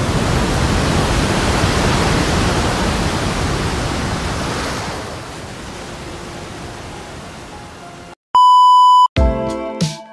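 A loud, even rushing noise like breaking surf that fades away over several seconds. Then a steady electronic beep, the loudest sound, lasting under a second. Electronic intro music with a beat starts right after it.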